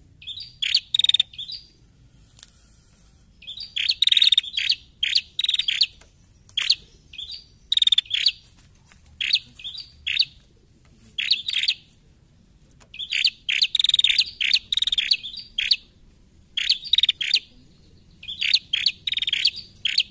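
Female prenjak calling in repeated bursts of rapid, sharp chirps. Each burst is a quick run of several notes, with short pauses of about a second between bursts.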